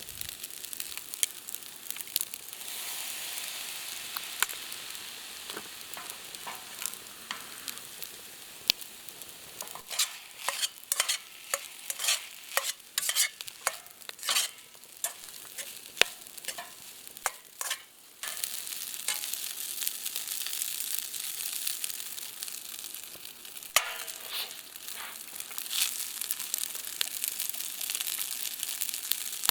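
Food sizzling in a frying pan, with a run of sharp scrapes and taps from a spatula stirring it in the middle stretch and a few more near the end.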